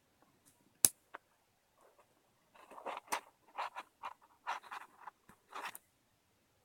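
Hands unpacking and handling a stainless steel watch strap. A sharp click sounds a little under a second in, then a run of short rustling, scraping strokes.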